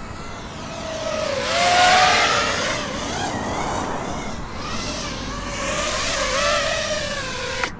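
FPV racing quadcopter's brushless motors whining as it flies past, the pitch bending up and down with the throttle. The sound swells twice, about two seconds in and again around six seconds, and cuts off suddenly near the end.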